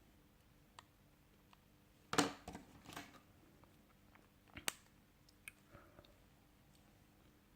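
Scattered small clicks, taps and short scrapes of hand tools on a smartphone's internal parts during disassembly, with the loudest cluster about two seconds in and single clicks after.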